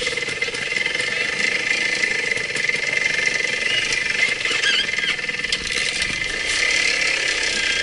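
Trial motorcycle engine running steadily while the bike is ridden slowly through a wooded section.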